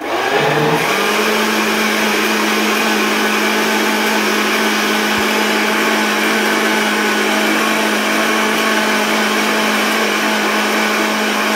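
Countertop blender switched on and blending a full jar of liquid guava punch: the motor starts abruptly, its pitch rising over about the first second as it spins up, then runs at a steady, loud whir.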